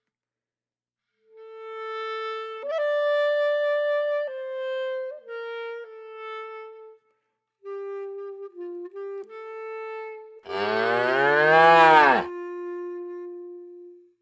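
A cow moos once, loudly, about ten and a half seconds in, its pitch rising and then falling over nearly two seconds. Behind it a clarinet-like woodwind melody plays in held, stepping notes.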